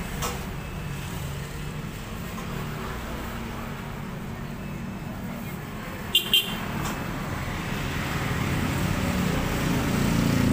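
Steady road traffic rumble, with two quick short beeps about six seconds in and a vehicle engine growing louder near the end.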